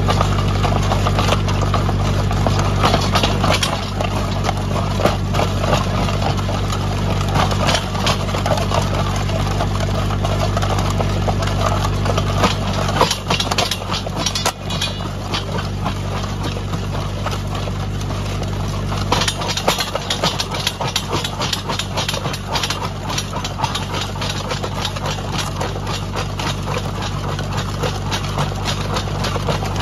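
Tractor engine running steadily under load, driving a PTO post-hole auger that bores into rocky ground. Rocks crackle and scrape against the auger flighting throughout.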